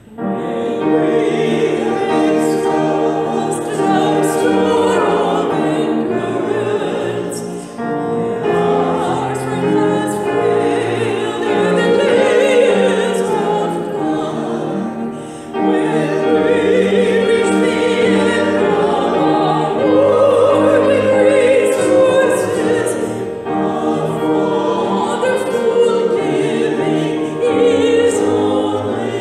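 Small mixed vocal group of two women and two men singing a slow hymn together in harmony, in sustained sung phrases.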